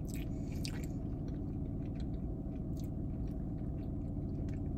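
A person biting and chewing a soft butter cookie topped with mousse: faint wet mouth clicks and smacks, a little busier in the first second, over a steady low background hum.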